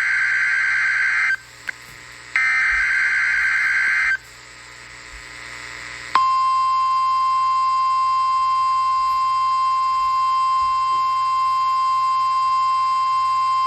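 NOAA Weather Radio weekly test signal. Two buzzing bursts of SAME digital header data, each under two seconds, are followed by a short pause of hiss. About six seconds in, the steady single-pitch 1050 Hz warning alarm tone begins and holds.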